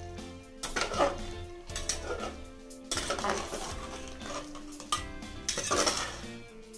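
Metal ladle scraping and clinking against the inside of a pressure cooker while stirring a wet chickpea and potato curry, several clinks through the stirring, over background music.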